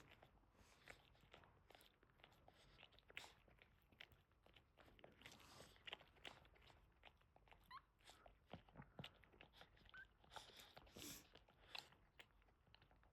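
Faint wet licking and smacking from a Boston Terrier mother cleaning her newborn puppies, with one or two brief rising squeaks from a puppy.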